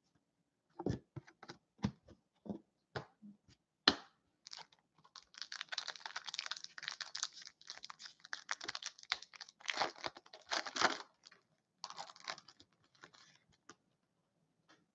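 Hockey card foil packs handled on a table: several sharp taps and clicks, then a pack's foil wrapper crinkling and tearing open for several seconds, with a shorter crinkle of the wrapper near the end as the cards come out.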